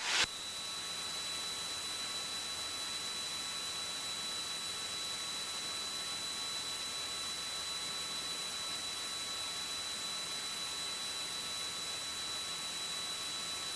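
Steady electronic hiss with a faint, thin high-pitched whine, the noise floor of the cockpit radio and intercom audio feed.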